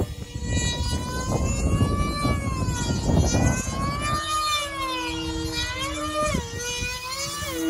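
Control-line aerobatic model plane's motor, a steady whine whose pitch rises and falls again and again as the plane circles and manoeuvres around the pilot. Wind rumbles and buffets on the microphone throughout.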